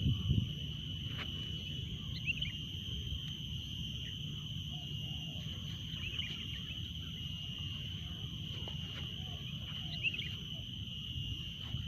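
Short bird chirps, three clusters about four seconds apart, over a steady high-pitched insect drone and a low rumble.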